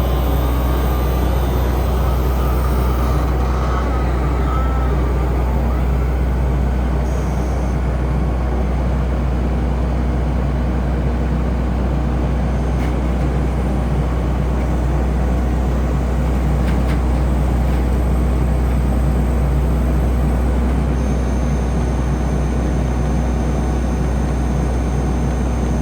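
Kubota SVL90-2 compact loader's diesel engine running at a steady speed, a deep, even drone. A faint high-pitched whine joins in near the end.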